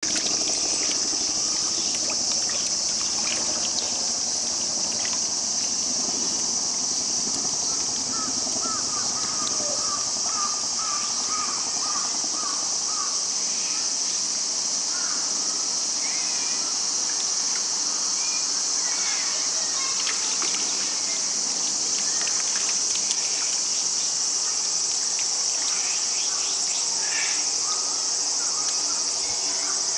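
Steady, high-pitched insect chorus, with a run of short chirping calls about eight to thirteen seconds in.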